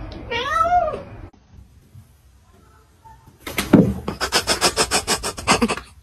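A kitten meows once, a rising-then-falling call, in the first second. About three and a half seconds in, a rapid rasping rattle of about nine pulses a second follows for a little over two seconds and is the loudest sound.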